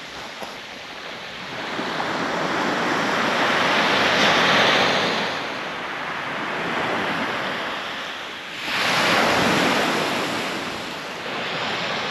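Surf breaking on a sandy beach: a rushing wash that builds to a peak about halfway through, falls away, then surges up again sharply with the next wave.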